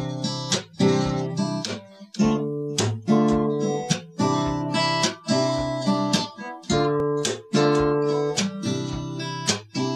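Acoustic guitar strumming chords in a steady rhythm, with brief stops between phrases: the instrumental intro of the song.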